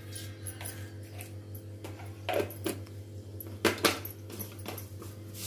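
Mustard seeds going into hot oil in a kadhai: a few sharp clicks and pops, starting about two seconds in, over a steady low hum.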